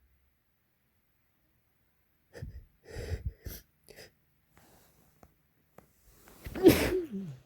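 Wet sneezing: a few short sniffs and snorts from about two seconds in, then a loud sneeze near the end whose tail slides down in pitch.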